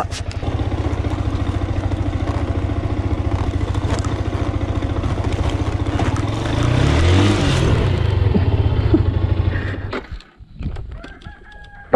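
Small road motorcycle's engine running at low speed, picking its way down a rocky dirt trail, with a brief rise in revs about two-thirds through. It cuts out suddenly near the end as the bike goes down.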